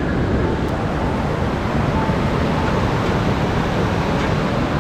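A fast, swollen mountain river rushing under a bridge: a loud, steady noise of the torrent, the sign of a very strong current.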